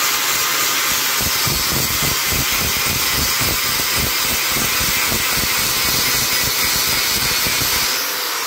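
DeWalt angle grinder with an 80-grit sanding pad running under load, grinding gel coat and paint off a fiberglass panel: a steady high whine with rough scouring of the pad on the glass. The sound falls away near the end.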